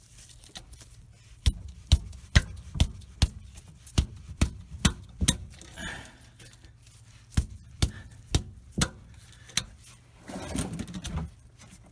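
A 3/8-inch ratchet clicking in sharp single clicks and short runs as it is worked on a differential plug held stiff with Loctite. A brief rough scraping noise comes near the end.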